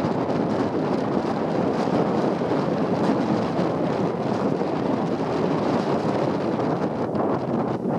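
Steady wind rushing over the microphone of a moving motorbike, mixed with its road noise.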